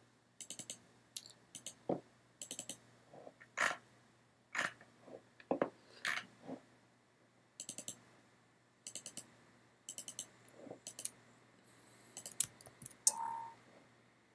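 Computer mouse clicking in quick pairs and short runs, double-clicks opening folders one after another, with a brief tone near the end.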